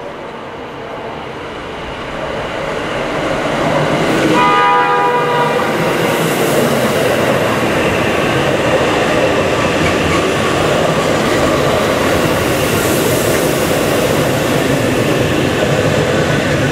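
JR Hokkaido 785-series electric express train approaching and passing close by. It sounds its horn once for about a second, around four seconds in. The running noise of the train on the rails grows louder over the first few seconds, then stays loud and steady as the cars go by.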